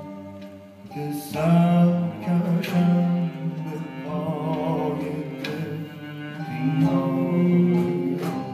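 Live Persian classical music: a male voice sings a long, ornamented line with wavering vibrato over bowed kamancheh and plucked tar. The music is softer at first and swells up about a second in.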